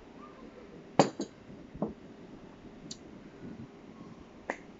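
A few sharp clicks and clinks of a glass measuring jug with a metal spoon in it being handled and set down on a table, the loudest about a second in, with a smaller one just after and more near the middle and end.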